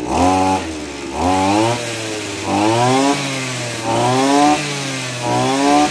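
Maruyama AD26 26cc brushcutter engine revved about five times as the red throttle trigger is squeezed and let go, each rev rising quickly in pitch and falling back toward idle. With the throttle limiter pulled all the way down, the red trigger still opens the throttle fully.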